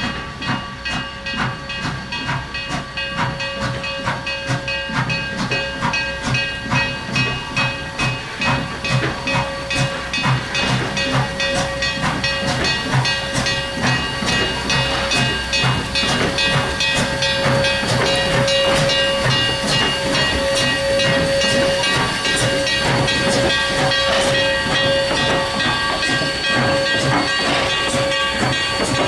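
Canadian National 7470, a 1921 O-18a 0-6-0 steam locomotive, working a train past, its exhaust chuffing at the stack and quickening until the beats run together as it gains speed. Steam hiss and steady high-pitched ringing tones run underneath, and the sound grows louder as the engine draws near.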